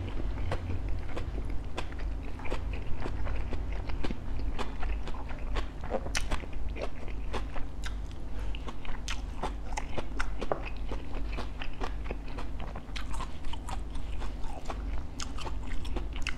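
Close-up mouth sounds of eating bánh khọt, small Vietnamese rice pancakes filled with shrimp and pork: steady chewing broken by many sharp, irregular crunches, over a steady low hum.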